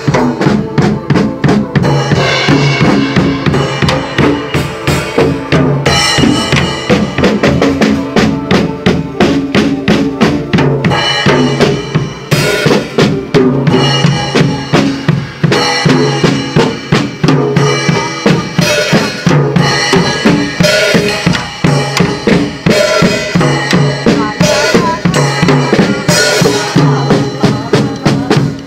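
Acoustic drum kit played live in a fast, steady groove: bass drum, snare and cymbals, with cymbal crashes every few seconds.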